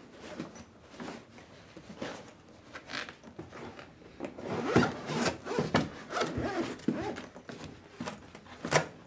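Zipper on a black drum-mic carrying case being pulled open in a run of short, uneven rasping strokes, with the case rubbing and scraping as it is handled. There is a sharp click near the end.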